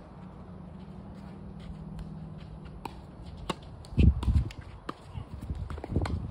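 Tennis court sounds: scattered sharp clicks of the ball being hit or bouncing, and footsteps on the court, over a steady low hum that stops about four seconds in. At that point comes a loud low thump, with a smaller one near the end.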